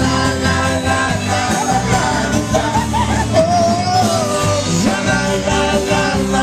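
Live band playing rock music with guitar, a man singing over it.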